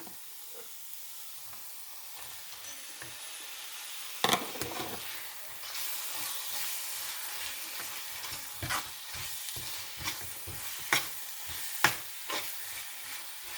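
Onion, ginger-garlic and spice masala sizzling in hot oil in a pan while chopped tomatoes are stirred in, a spoon scraping and knocking against the pan several times. The sizzle grows louder about halfway through.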